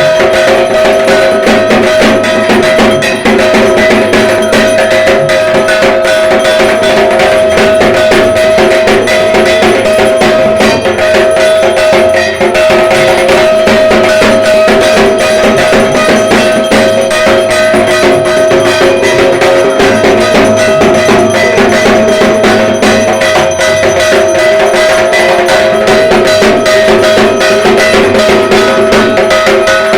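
Dhak drums playing a fast, unbroken rhythm, with a steady metallic ringing over the drumming.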